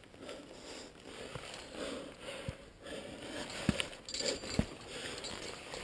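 A climber's breathing close to the microphone while scrambling on rock, with scuffs of hands on the rock and a few short, light knocks.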